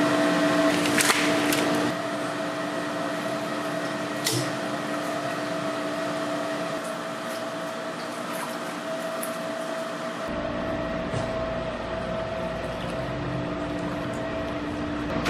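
Steady hum of factory machinery with water running and splashing in a cooling tank, with a few brief clicks.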